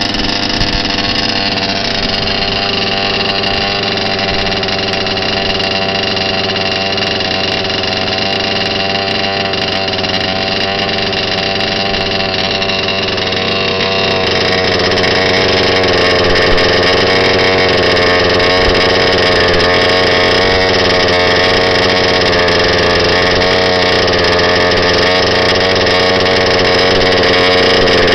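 Two-stroke petrol engine of a Reeley Carbon Fighter RC car, breathing through an aftermarket HPI Baja 5B loud pipe, running steadily near idle with its pitch wavering slightly; it gets louder about halfway through.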